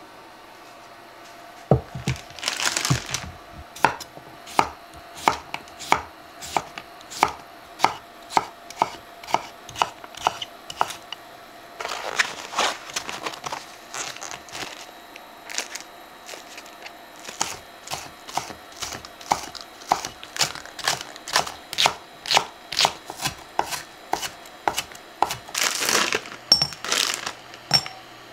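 Kitchen knife slicing cucumber on a wooden cutting board: a long run of even chopping strokes, about one and a half a second, with a few brief rustles between runs.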